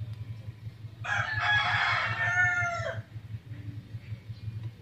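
A rooster crowing once, a call of about two seconds that drops in pitch at its end, over a steady low hum.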